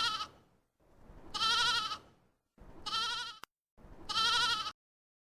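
A goat bleating four times in a row, each bleat a quavering cry under a second long. The third bleat is cut off abruptly.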